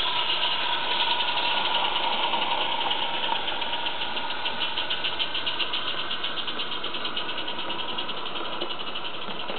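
Small live-steam garden-railway locomotive running past with rapid, even exhaust chuffs over a steady hiss, the beats fading toward the end as it moves away.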